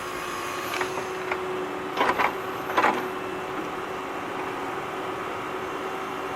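Small electric motor of a radio-controlled toy running with a steady whirr and a thin steady whine, with a couple of short louder knocks about two and three seconds in.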